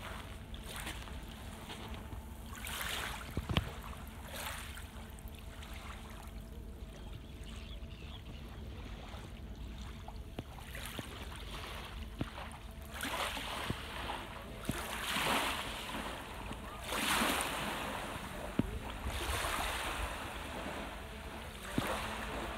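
Small sea waves lapping at the edge of a sandy beach, washing in soft swells every few seconds over a steady low rumble.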